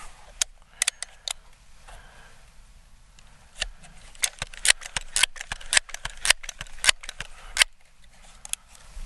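Crosman 1322 multi-pump pellet pistol being readied for a shot: a few light clicks of the bolt being worked in the first second or so, then from about three and a half seconds in a quick run of sharp metallic clacks as the pump lever is opened and closed, six pumps charging the air for the next shot.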